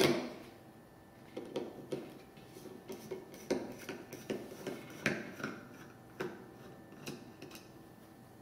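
A Phillips screwdriver unscrewing the screws of a gas detector's plastic sensor housing: a sharp click at the start, then scattered small clicks and taps of the screwdriver on the screws and housing.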